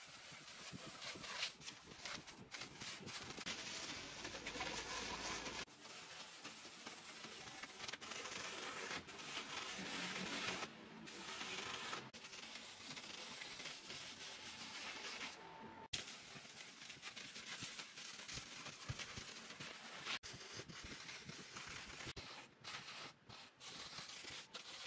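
Power drill spinning an abrasive disc over rough tree bark: a continuous rough scratching and scouring noise, broken by several sudden short gaps.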